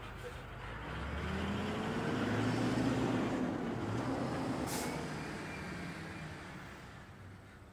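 A motor vehicle passing by: engine and road noise swell to a peak about three seconds in, then fade away.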